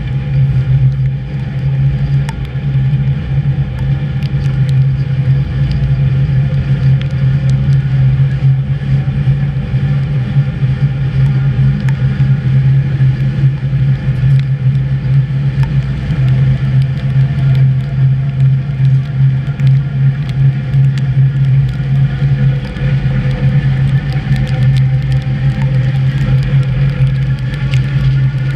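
HÉV electric suburban train running at speed, heard from the driver's cab: a steady, loud low drone of the motors and running gear, with scattered light clicks.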